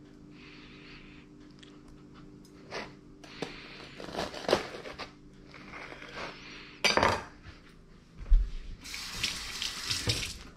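Serrated bread knife sawing through a toasted bagel's crisp crust on a wooden cutting board, a run of short crackling strokes. A loud knock comes about seven seconds in, and near the end a kitchen faucet runs into a steel sink.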